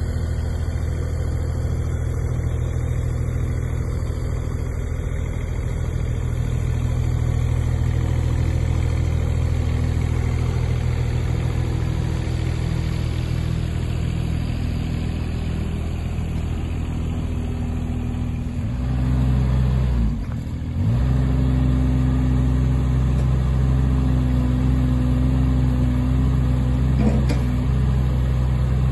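Kubota KX015-4 mini excavator's diesel engine running steadily. About two-thirds of the way through, the engine note changes and becomes slightly louder, with a brief dip.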